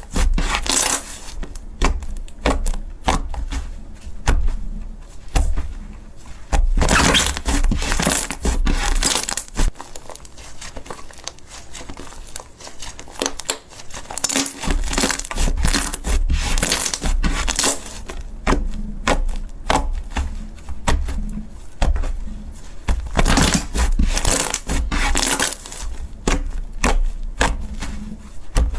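Slime being squeezed and pressed by hand, making dense crackling, crunching sounds that swell and ease in stretches of a few seconds.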